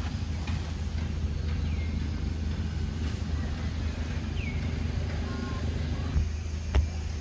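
Outdoor ambience: a steady low rumble, with a few short, falling bird chirps and one sharp click near the end.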